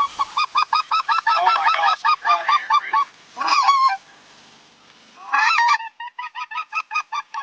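Specklebelly (greater white-fronted) goose calls: a fast run of high yelping notes, a longer call, a pause, then another longer call and a second quick string of short yelps near the end.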